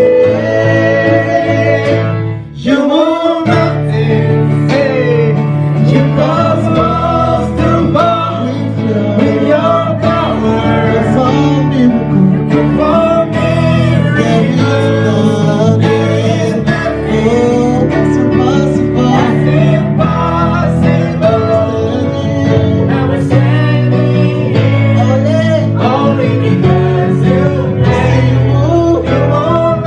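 A band playing a song, with voices singing over guitar and bass. The music breaks off briefly about two and a half seconds in, then goes on.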